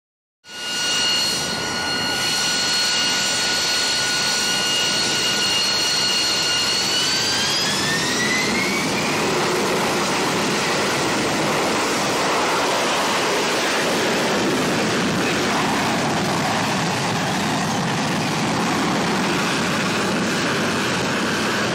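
AV-8B Harrier II's Rolls-Royce Pegasus turbofan during a vertical takeoff and hover: a loud, steady jet roar with a high whine. The whine rises in pitch about seven to nine seconds in and is then lost in the roar.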